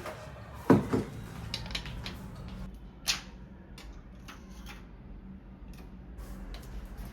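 Kitchen handling sounds: a sharp knock about 0.7 s in, followed by scattered light clicks and taps of utensils and cookware, over a steady low hum.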